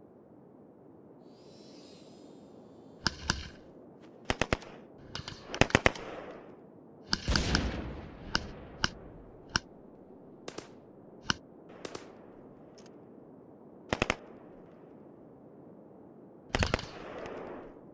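Small-arms gunfire: single shots and quick bursts of two or three, spaced irregularly, with a few louder shots trailing off in a long echoing rumble.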